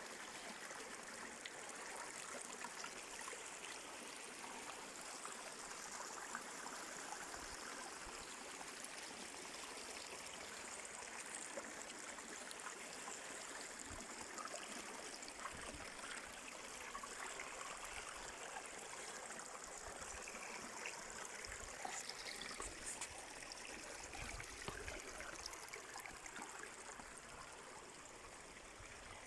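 A stream flowing steadily, a continuous hiss of running water, with a few soft low thumps in the second half.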